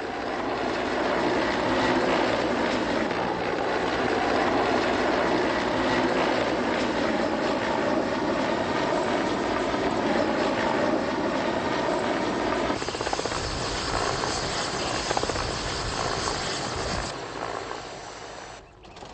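Mi-8-family military helicopter running close by: a steady rotor and turbine noise, with a brighter high hiss joining for a few seconds about two-thirds of the way in, then falling away near the end.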